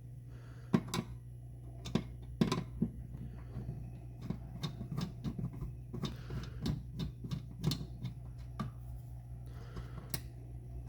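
A screwdriver turning out a small screw from a sheet-metal plate: irregular light clicks and scrapes of the bit and screw against the metal, over a steady low hum.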